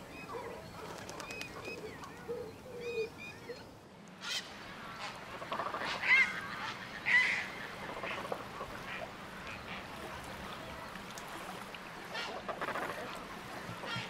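Wetland birds calling: short, repeated chirping calls for the first few seconds, then a busy chorus of waterfowl calls, loudest with two calls about six and seven seconds in.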